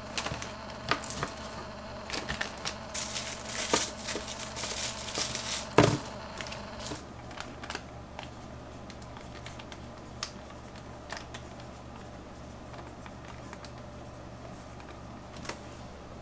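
Small clicks, taps and rustles of things being handled, with one louder knock about six seconds in; after about seven seconds it goes quieter, with only an occasional tick.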